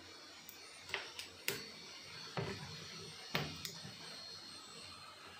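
Irregular small sharp clicks and taps of a metal hand tool and fingers against the plastic instrument cluster as its gauge needles are worked on, about seven in the first four seconds, over low room tone.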